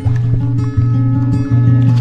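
Instrumental background music with plucked string notes over a steady low bass line.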